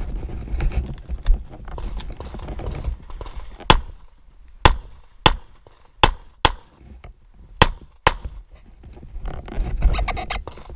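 Semi-automatic pistol firing a string of sharp shots during a timed practical-shooting stage run: two fainter cracks about one and two seconds in, then seven loud shots, mostly in quick pairs about half a second apart.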